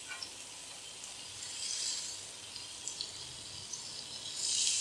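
Marinated chicken leg pieces sizzling faintly on a hot stovetop grill pan, with a few light clicks of metal tongs. Near the end the sizzle jumps much louder as a piece is turned over onto its uncooked side.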